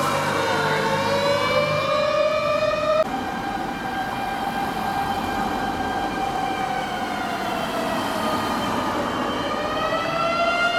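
Tokyo Fire Department pump engine's motor siren wailing, its pitch sliding slowly down and back up. The sound breaks off abruptly about three seconds in and resumes at a slightly higher pitch, dipping and rising again near the end.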